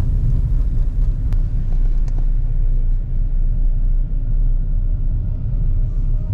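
Low, steady rumble of a car on the move, heard from inside the cabin: road and engine noise, with a single sharp click about a second in.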